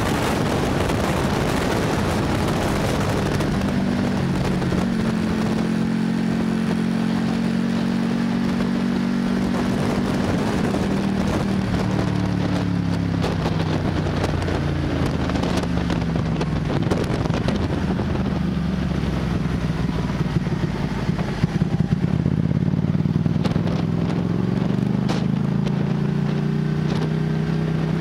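Sport motorcycle engine heard from on board the bike, with wind rushing over the microphone at first. The engine note falls as the bike slows, with a few sharp clicks about two-thirds of the way through, then settles at a low, steady pace and rises a little near the end.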